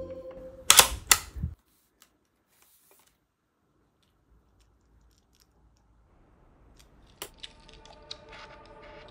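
Two loud, sharp metallic clicks about a third of a second apart from a Diana Mauser K98 PCP air rifle's action being handled, then near silence with a few faint ticks. Near the end comes one more click, and faint background music comes back.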